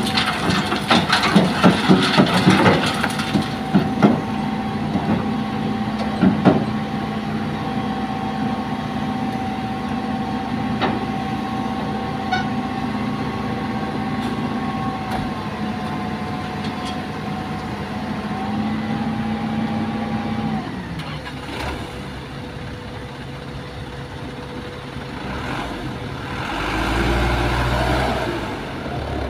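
Sand and stones from a Hitachi excavator's bucket clatter through a steel sieve screen into a dump truck's bed for the first few seconds, over the excavator's diesel engine and hydraulics running under load with a steady whine. The engine tone drops suddenly about two-thirds of the way in. Near the end the loaded dump truck's diesel engine revs up to pull away.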